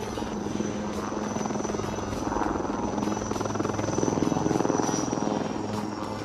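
Helicopter running: rapid rotor chop over a steady low hum, with a steady high turbine whine.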